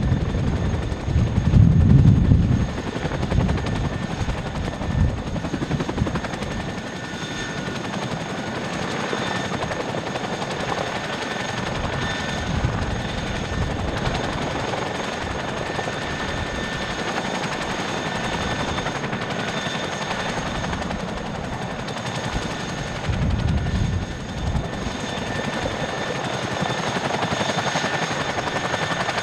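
Tandem-rotor CH-47 Chinook helicopters running: continuous rotor blade chop with a steady high whine from the turboshaft engines. Heavier low thumping of the rotors at the start and again later.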